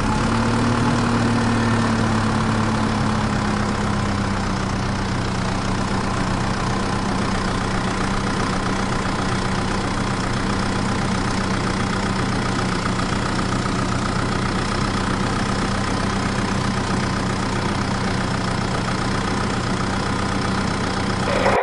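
Mini tractor's engine idling steadily, its pitch settling slightly lower over the first few seconds and then holding even.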